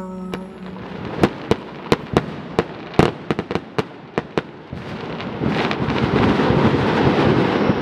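Fireworks going off: a quick series of about a dozen sharp bangs and pops, then from about five seconds in a dense, louder crackling. A song's last held note cuts off at the very start.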